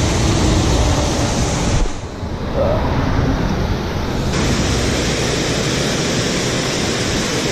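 Water pouring over a dam spillway into a foaming pool: a loud, steady rush. For about two seconds a little past the two-second mark the rush turns duller, losing its hiss, then comes back full.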